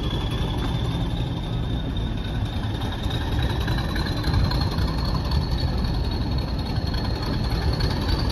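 Class 40 diesel-electric locomotive D345's English Electric 16-cylinder engine working under power as it draws the train away, heard from an open carriage window: a heavy low rumble with the turbocharger's whistle rising steadily in pitch as the train picks up speed.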